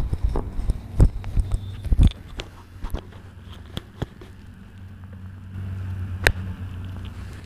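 Irregular sharp knocks and taps, a dozen or so, the loudest about one and two seconds in and another about six seconds in, over a steady low hum.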